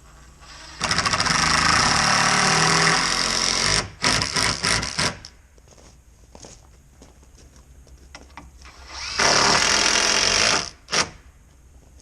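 Power drill driving screws: one run of about three seconds that bogs down in pitch as it loads, several quick short bursts, then another run of about a second and a half near the end.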